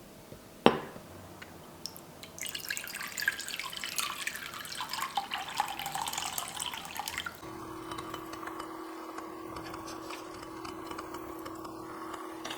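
A sharp clack, then water running from a kitchen tap for about five seconds before it stops. After it a steady, even hum sets in.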